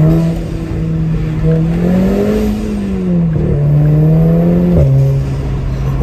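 Volkswagen Golf R Mk7's EA888 2.0-litre turbocharged four-cylinder, fitted with an open cone intake, pulling hard and heard from the cabin with the windows open. The engine note rises, dips briefly, rises again, then falls sharply about five seconds in as the revs drop, with a rush of intake air over it.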